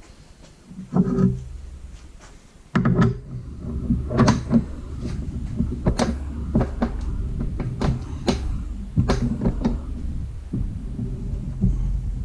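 Metal clicks and knocks from a hand-turned ball joint press and wrench seating a new ball joint into an upper control arm. A low steady hum comes in about three seconds in.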